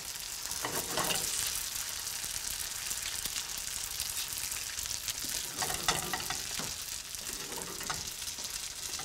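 Wonton-wrapper ravioli sizzling steadily in browning butter in a frying pan, with a spatula moving them around.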